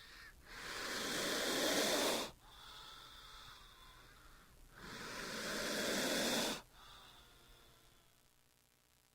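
King cobra hissing: two long, breathy hisses about four seconds apart, each swelling over a second or two and then cutting off sharply.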